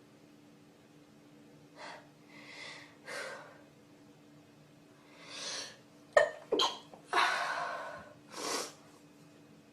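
Breath sounds: several short puffs and sniffs, then a sharp sneeze-like burst about six seconds in, followed by a long breath out and one more puff.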